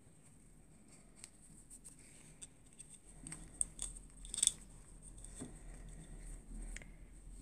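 Faint fabric rustling and small sharp clicks as hands pull a plaid cloth skirt onto a plastic Barbie doll and work its hook fastening at the waist; the sharpest click comes about four and a half seconds in.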